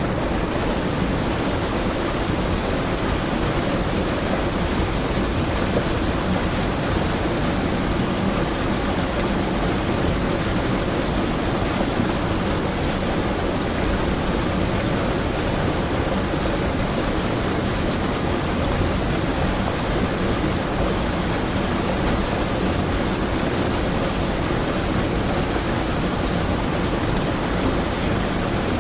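River water rushing over a small waterfall: a steady, even rush of falling and running water.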